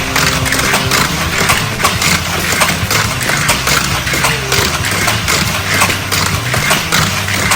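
Motorized toy race track running: a steady engine-like sound effect with plastic toy cars rattling rapidly along the track.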